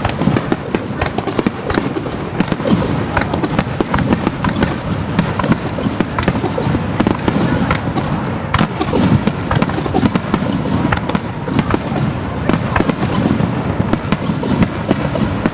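Fireworks display going off in a rapid, continuous barrage: many sharp bangs and crackles a second over a low rumble, with no break.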